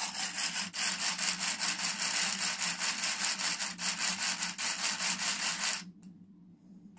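Lego Powered Up train motor and gearing running fast in a brick-built locomotive: a loud hissing whirr with rapid, even clicking, which cuts off suddenly near the end. The owner says the loco is acting up again, a sign of a misbehaving Powered Up hub.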